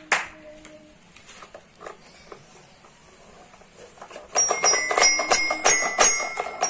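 Children's toy xylophone with metal bars being struck: a couple of ringing notes at the start, then about four seconds in a quick run of notes, roughly four a second, each ringing briefly.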